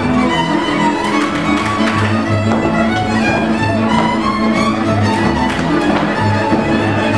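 Transylvanian village string band playing Hungarian dance music: several fiddles bowing the tune together over a steady, pulsing double bass line.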